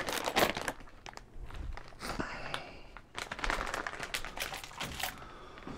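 Plastic packaging crinkling and rustling as it is handled, with irregular crackles throughout.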